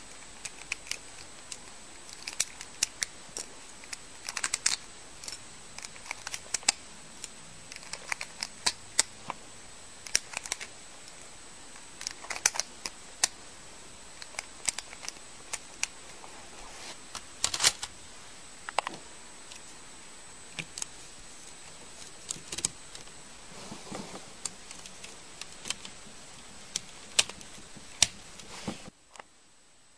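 Irregular sharp plastic clicks of red LEGO bricks being pushed one by one into a LEGO-built rifle magazine, over a steady background hiss.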